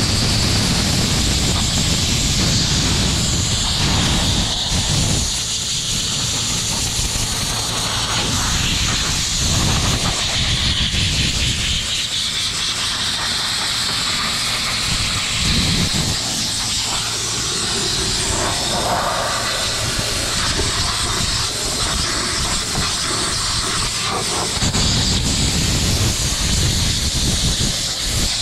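Pressure washer spraying with a steady hiss, over a low rumble that fades out and comes back several times.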